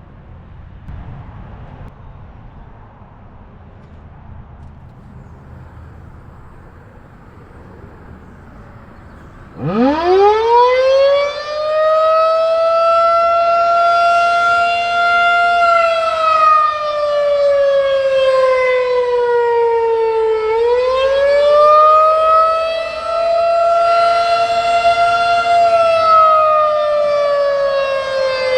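A Federal Signal 2001-SRN electromechanical outdoor warning siren starts up about ten seconds in. It sweeps steeply up in pitch to a loud, high wail, then falls and rises again in slow waves peaking about ten seconds apart: the wavering attack signal. Before it starts there is only faint outdoor background noise.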